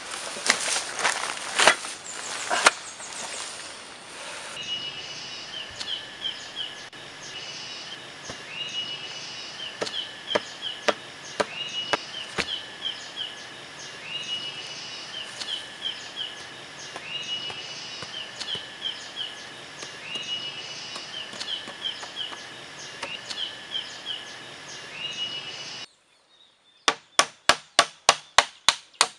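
Bags and gear rustling as they are set down. Then a high call repeating about every two and a half seconds over a few scattered knocks. Near the end comes a quick run of about ten sharp, loud hammer strikes on a bamboo frame, about four a second.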